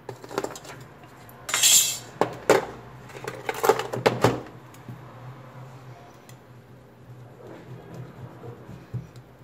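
Small tools and phone parts handled on a workbench during a phone back-cover replacement: a few sharp clicks, a short scraping rush about a second and a half in, and a cluster of metallic clattering knocks, then fainter scattered ticks.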